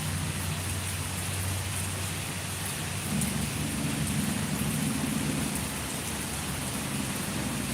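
Steady heavy rain falling, with a low rumble underneath that grows louder about three seconds in.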